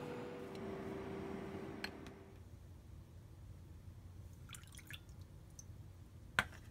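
Soft brushing of syrup onto a baked tart shell over a faint steady hum, stopping about two seconds in. Then a brief trickle of water poured into a glass bowl of sugar, and a single sharp click near the end, the loudest sound.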